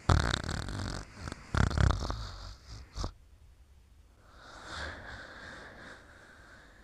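Snoring in sleep: two loud, rough snores in the first two seconds and a short snort at about three seconds, then a softer, wheezy breath near the end.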